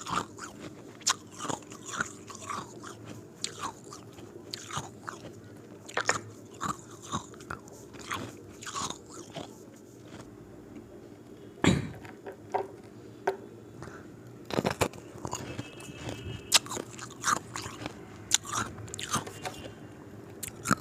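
A person biting and crunching ice cubes, with irregular sharp crunches and crackles, one louder bite about twelve seconds in. A faint steady hum sits underneath.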